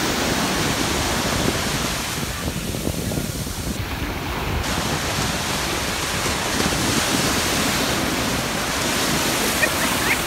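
Ocean surf breaking and washing along the shore, with wind rumbling on the microphone.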